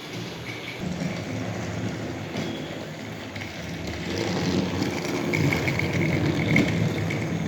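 Toy train running along a layout track: a steady mechanical rattle and hum that grows louder about halfway through.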